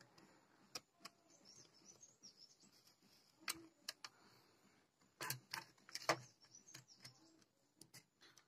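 Faint, scattered clicks and taps of hands pulling wire connectors and handling the power-supply board inside a set-top box's metal chassis, the loudest few a little past halfway.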